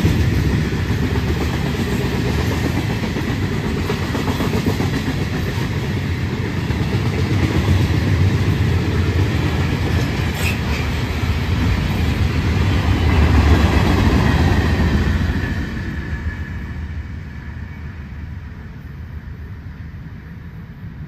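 Freight train of covered hopper cars rolling past, its wheels rumbling steadily on the rails. The last cars go by about three-quarters of the way through and the sound drops away.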